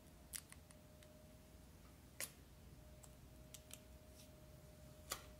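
Near silence with a handful of faint, sharp clicks and ticks, two of them louder (about two seconds in and near the end), from fingers handling a CPU tower cooler while the protective label is peeled off its metal base.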